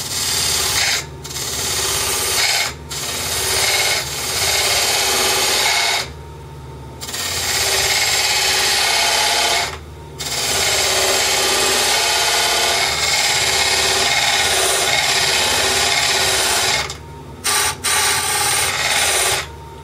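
Diamond parting tool cutting into a wood blank spinning on a mini wood lathe, flattening an end face that has turned convex: a steady scraping hiss of the cut in several long passes, with brief breaks, the longest about six seconds in. A steady hum from the lathe's motor runs underneath.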